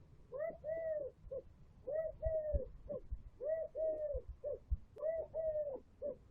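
A dove cooing: four repeated three-note phrases, each two longer arched coos followed by a short one, about a second and a half apart. A few brief low thumps sit underneath.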